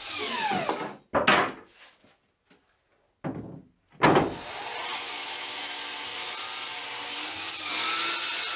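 DeWalt FlexVolt cordless sliding miter saw spinning down after a crosscut, its pitch falling, followed by a few sharp knocks as the rough red oak board is handled. About four seconds in the saw starts abruptly and runs steadily, cutting into the oak board near the end.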